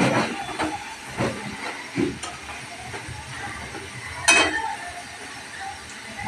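Gathiya (gram-flour snack) sizzling as they deep-fry in hot oil in a kadai, a steady hiss. A metal utensil clinks and scrapes against the pan several times, loudest about four seconds in.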